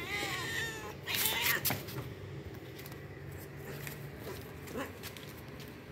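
Domestic cats meowing: two drawn-out meows in the first two seconds, then quieter with only a few faint short sounds.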